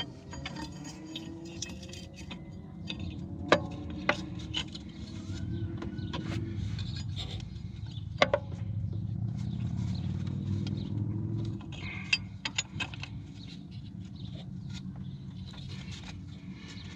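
Light clicks and scrapes of hand work at the back of a Ford 5.4L engine as a replacement cylinder head temperature sensor is threaded in, with a few sharp metallic clinks, the loudest about three and a half and eight seconds in. Under it, a steady low rumble swells for a few seconds in the middle.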